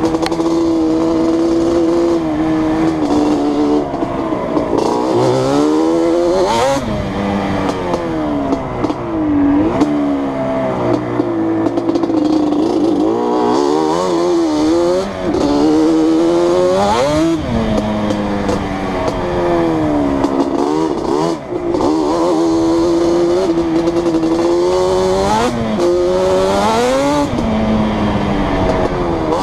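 Yamaha Banshee quad's 350cc twin-cylinder two-stroke engine, on Toomey T5 replica drag pipes and twin Keihin 28 mm carburettors, revving hard under riding load, its pitch climbing and dropping back again and again through the gears with steadier stretches between.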